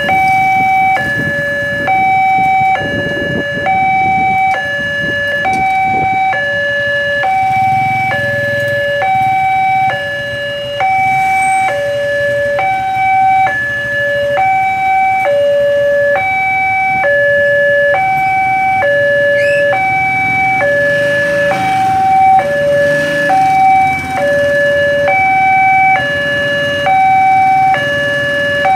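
Railway level-crossing warning alarm sounding a steady two-tone electronic signal, a higher and a lower tone alternating at about one pair a second: the warning that a train is approaching and the crossing barrier is closing.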